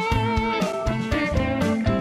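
Instrumental background music with guitar over a steady drum beat.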